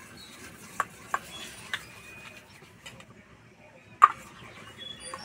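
Steel ladle stirring thick semolina batter in a stainless steel bowl, with a few sharp clinks of metal on metal as it knocks the bowl's side. The loudest clink comes about four seconds in.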